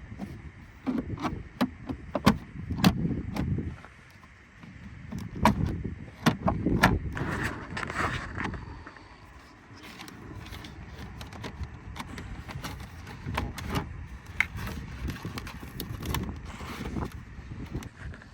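Irregular clicks, knocks and rustling of hands working an RCA cable through the minivan's plastic interior trim, busiest in the first half.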